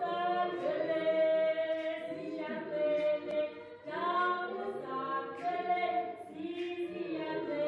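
Choir singing a cappella, several voices holding long notes in short phrases.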